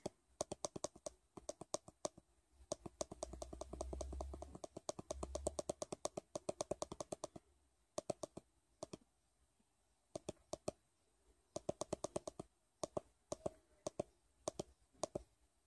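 Faint clicking of the side button on an Easy@Home wrist blood pressure monitor, pressed over and over to step the clock's minutes forward. A fast run of several clicks a second lasts about five seconds, then single clicks come slower with pauses.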